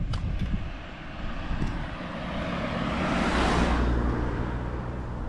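A car driving past on the road, its tyre and engine noise swelling to a peak about three and a half seconds in and then fading away.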